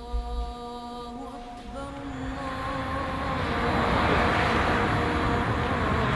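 A held, drone-like musical tone fades out about two seconds in as street traffic noise swells up, a steady rumble and hiss of motor vehicles that grows loud and stays. A short low thump sounds right at the start.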